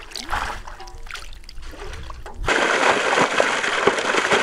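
Fish thrashing and splashing in shallow muddy water, then, from about halfway, a loud steady rush of water pouring over fish in a plastic basket.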